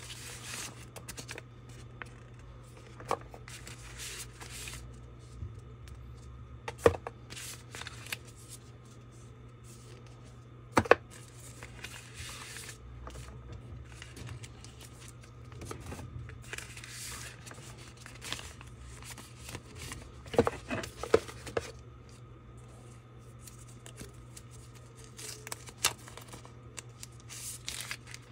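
Paper leaflets and card sheets being handled: rustling and sliding paper with several sharp taps and clicks scattered throughout, over a steady low hum.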